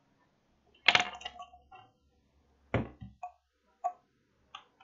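A handful of sharp clicks and knocks, about a second apart, with a brief ringing after each. The loudest comes about a second in and a second heavy one near three seconds in.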